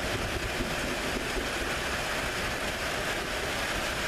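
Steady hiss of heavy thunderstorm rain with wind, a low buffeting rumble underneath.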